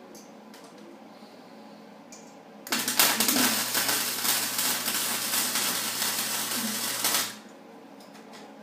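Flux-core wire-feed welder arc crackling steadily while laying a weld on a snowmobile exhaust crack, with the wire speed turned up. One burst of about four and a half seconds, starting about three seconds in and stopping abruptly.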